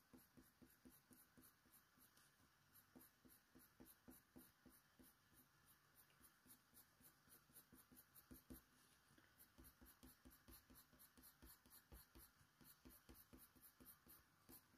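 Very faint scratching of a Faber-Castell Polychromos coloured pencil laying short, irregular strokes on hot-press watercolour paper, close to silence.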